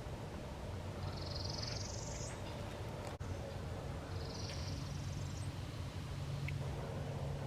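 A songbird sings two high, buzzy, slightly rising songs, each about a second long and about three seconds apart, over a steady low background rumble.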